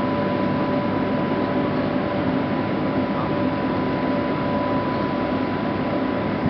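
Boat lift drive machinery running steadily as the trough is raised: an even mechanical hum with a constant whine held at a few fixed pitches.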